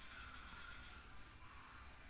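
Faint scraping of a metal spoon scooping rice and crispy fried chicken in a paper bowl.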